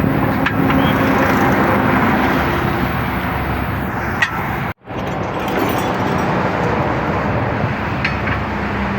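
Steady roar of traffic on a highway close by, with a faint hum under it. About halfway through, the sound cuts out for an instant, then the traffic noise carries on.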